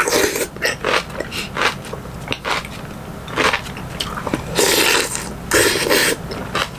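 Close-up mouth sounds of a person eating a spoonful of rice, kimchi and hot beef-head soup: wet chewing and smacking, with two longer slurps a little past the middle.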